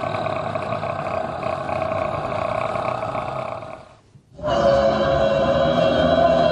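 A choir imitating a car engine with their voices: a steady, droning mass of voices that breaks off about four seconds in and comes back louder.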